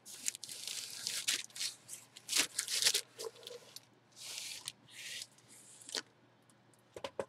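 Clear plastic wrapping rustling and crinkling in several bursts as a baseball bat is pulled from its cardboard shipping tube and handled. A couple of sharp clicks near the end.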